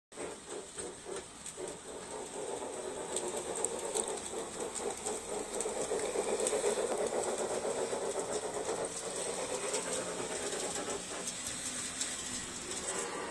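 Hartland large-scale model Disneyland Railroad locomotive, the Ernest S. Marsh, running on its track: a steady whir of the electric motor and gears with rapid clicking of the wheels on the rails. It is loudest as the train passes close, about six seconds in.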